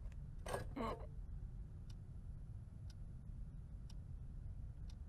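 Wall clock ticking faintly, once a second, over a low steady hum. About half a second in, a person makes two short vocal noises.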